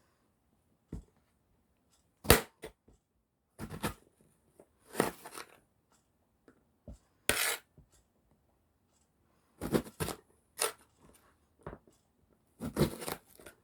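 A kitchen knife slicing through eggplant and striking the cutting board in about ten irregular strokes. Some are short knocks and some are longer drawn cuts through the flesh.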